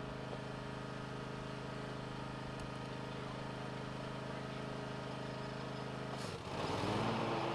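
John Deere Z-Track zero-turn mower engine running steadily at a constant speed. About six seconds in the sound dips briefly, then the engine runs on louder with a changed note.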